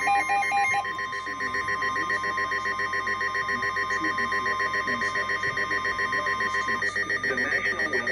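Emergency Alert System attention tone: a steady single-pitch tone of about 1 kHz that cuts off about seven seconds in. Under it runs a rapid, evenly pulsing electronic ringing that continues after the tone stops. The attention tone announces a severe thunderstorm warning.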